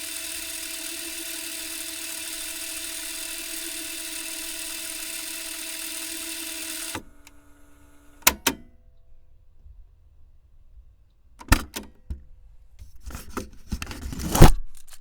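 Tape machine rewinding, its motor whirring at a steady pitch, stopping abruptly with a clunk about seven seconds in. A few sharp clicks follow, then a clatter of clicks and rustling near the end, the loudest a sharp click just before the end.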